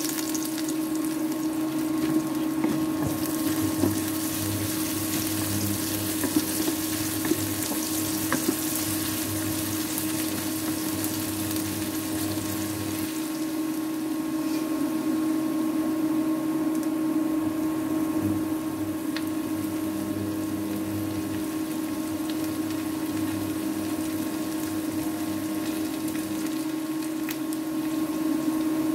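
Chopped onion, bay leaves and dried red chilies sizzling in hot oil in an aluminium karai, over the steady hum of an induction cooktop. A few light knocks of a wooden spatula in the first several seconds; a lower hum drops out about halfway and returns near the end.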